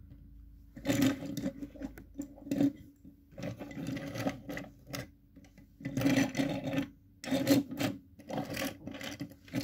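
Die-cast metal toy cars pushed back and forth over a wooden surface by hand, their small wheels rolling on the wood in about six short rumbling strokes with pauses between.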